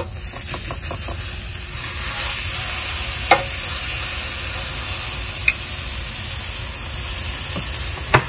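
Venison backstrap sizzling on the hot grates of a Weber grill, the hiss swelling as the meat is flipped onto its uncooked side. A few sharp clicks of metal tongs on the grate stand out over it.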